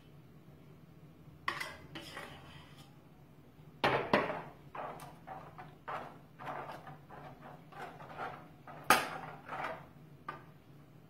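Kitchen utensil clinking, knocking and scraping against a baking dish, a scattered series of light knocks with two louder ones about four and nine seconds in, as food is spooned and spread in the dish.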